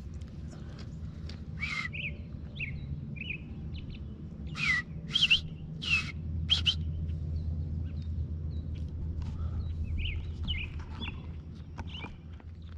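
Short chirping robin calls, about a dozen, each a quick sweep in pitch, with a louder cluster around the middle, over a steady low rumble.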